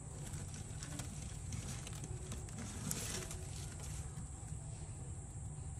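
Faint rustling and crackling of dry grass and bamboo-leaf bedding as red panda cubs shift in their nest, with a slightly louder rustle about three seconds in. A steady low hum and a thin high whine run underneath.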